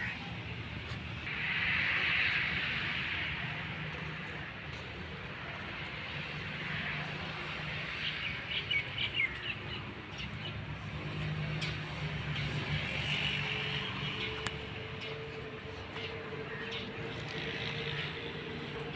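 Outdoor ambience: birds chirping in patches over a steady low hum.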